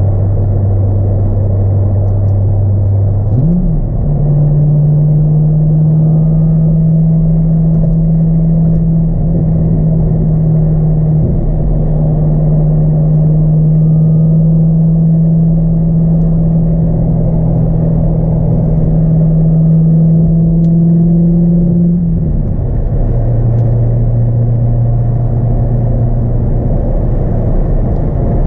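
The 2002 C5 Corvette's LS1 V8, fitted with a cold air intake, heard from inside the cabin while cruising on the highway, over steady road noise. Its low, steady drone rises quickly in pitch about three and a half seconds in as the engine revs up. It holds at the higher note, then drops back a little after twenty-two seconds.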